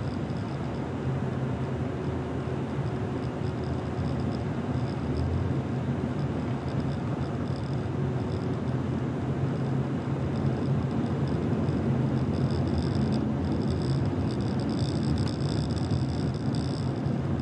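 A car driving: steady road and tyre noise with a low engine hum, getting a little louder partway through.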